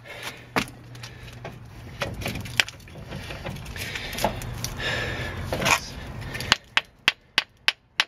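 Rusted front wheel hub on a Dodge Ram 2500 being rocked and pulled by hand, metal scraping and clunking as it works loose. Near the end come quick, sharp metal knocks, about five a second.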